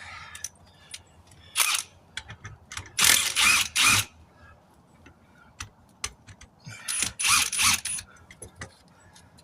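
Hand work on a truck tire and steel rim during manual tire dismounting: sharp clicks and clattering, scraping bursts, in groups about a second and a half in, around three to four seconds in, and again around seven to eight seconds in.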